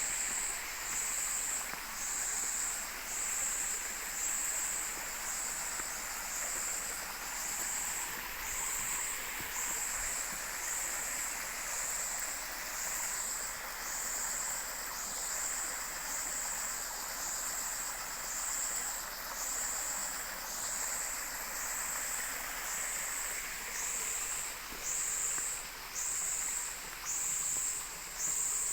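An insect calling in a steady rhythm of high-pitched pulses, about one a second, over the steady rush of a forest stream.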